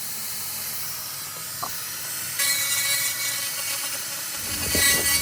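300 W fiber laser cleaner hissing steadily as it burns baked-on grease and carbon off a barbecue grill grate, growing louder about two seconds in, with a low hum joining near the end.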